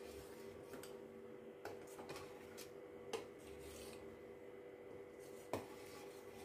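A steel spoon stirring milk in a stainless steel pot, scraping and clinking against the metal now and then, with a sharper clink a little past three seconds in and the loudest just after five seconds. A faint steady hum runs underneath.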